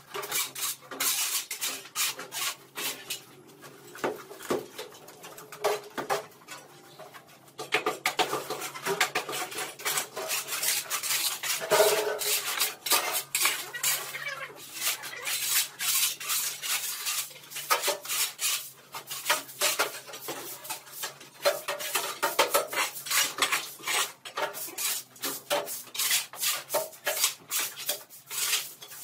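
Metal shovels scraping and clanking on a concrete floor and plastered walls as rubble is cleared, with a broom sweeping. The strokes are sparse at first, then come thick and fast from about seven seconds in.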